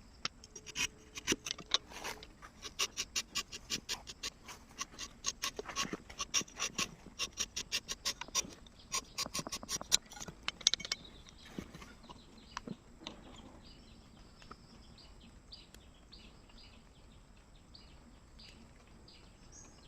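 A blade cutting into a rubber tree's bark: a quick run of sharp strokes, about three a second, for about ten seconds. After that come fainter, scattered short scrapes.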